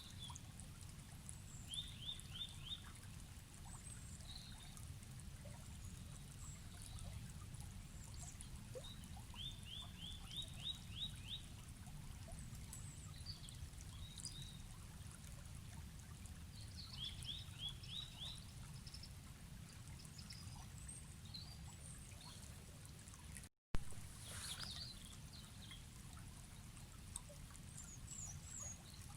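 A stream running in a low, steady rush under birdsong: one bird repeats a quick phrase of four to six rising notes three times, among scattered higher chirps. About three-quarters of the way through the sound drops out for a moment and comes back with a click, like an edit join.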